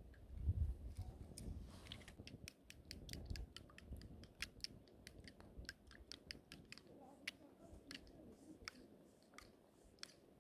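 A fork beating eggs in a small plastic bowl, its tines clicking quickly and unevenly against the bowl's sides. A low rumble comes in the first two seconds before the clicking starts.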